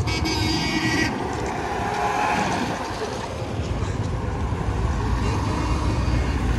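Classic cars driving past one after another on a city road, engine and tyre noise with a low rumble that grows stronger from about halfway through. A high-pitched tone sounds for the first second.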